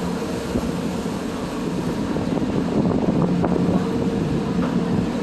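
Passenger ferry's engine running with a steady drone, with wind rushing over the microphone.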